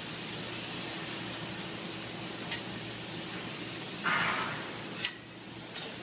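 Steady hum and hiss of plant machinery, with a few light metallic clicks as steel rings are handled on a steel tray, and a short hissing burst about four seconds in.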